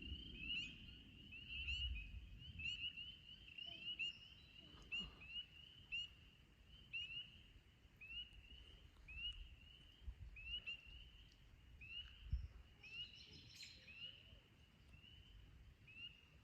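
Chorus of spring peepers: many short, rising peeps, dense at first and thinning out over the second half.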